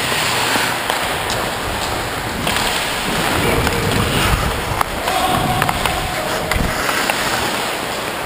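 Ice skates scraping and carving over the ice during play, heard from a player's own camera, with several sharp clicks of a hockey stick on the puck.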